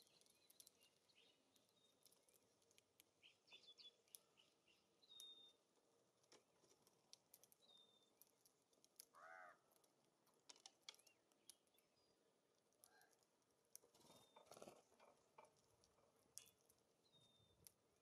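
Faint songbird activity at a seed feeder: scattered small clicks and taps from birds feeding and moving on the feeders, with brief high chip calls every few seconds. One short, harsher call comes about nine seconds in.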